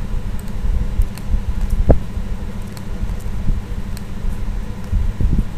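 Steady low rumbling background noise with a faint steady tone, with a few light clicks and one sharper click about two seconds in.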